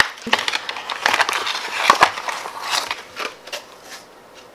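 Foil-and-plastic slime pouch crinkling and crackling as it is handled, with a couple of sharp clicks.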